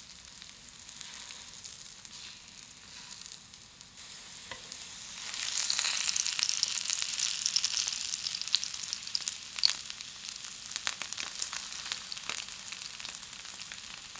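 Floured yellowtail fillets sizzling in hot vegetable oil in a pan on high heat, searing to brown. A steady hiss with scattered crackles and pops, growing louder about five seconds in.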